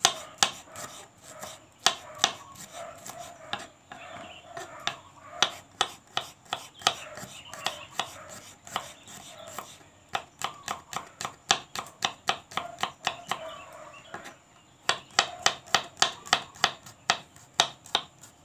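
Knife chopping vegetables on a cutting board: a run of quick, sharp strokes, about three or four a second, stopping briefly twice.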